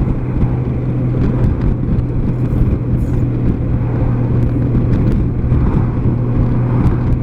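Honda Gold Wing's flat-six engine running steadily under a dense low rumble of motorcycle noise.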